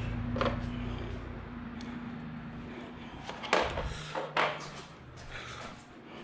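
Hand tools clinking and knocking on the intake bolts and parts in a car's engine bay, with a sharp click about half a second in and two louder knocks near the middle. A low steady hum underneath fades out about three and a half seconds in.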